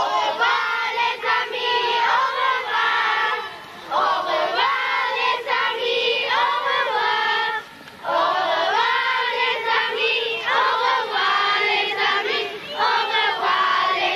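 A group of young children singing together in phrases, with short breaks about 4 and 8 seconds in.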